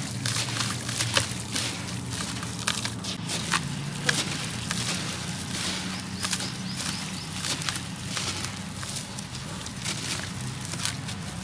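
Soft, gritty sand-cement and ash chunks being squeezed and crumbled by hand over a basin of water: an irregular run of crunches and crackles as they break up, with grit falling into the water.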